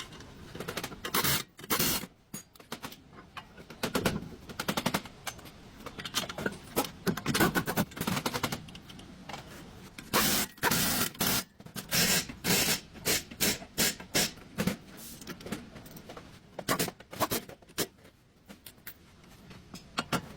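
Repeated bursts of rapid rattling knocks, like power-tool or hand-tool work on metal, some lasting about a second and others only short clatters.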